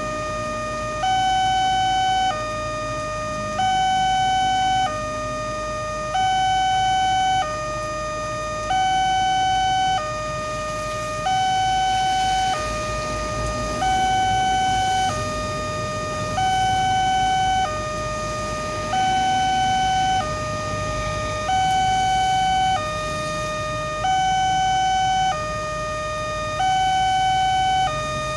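Railway level-crossing warning alarm sounding from the loudspeaker on the signal mast. It is an electronic two-tone signal that alternates steadily between a higher and a lower tone, each held about a second and a quarter, and it warns that a train is approaching with the barrier down.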